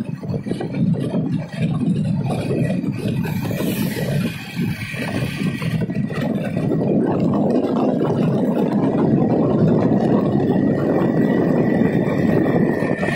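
Wind rushing and buffeting over the microphone of a motorcycle rider's phone, with the motorcycle's engine running underneath. The rush grows louder and steadier about halfway through.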